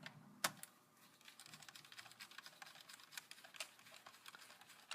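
Faint, rapid light clicking and ticking, with one sharper click about half a second in: a small screwdriver and screw being worked at the screw that secures a laptop keyboard.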